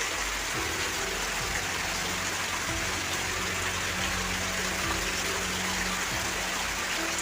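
Heavy rain and running water: a steady rushing hiss.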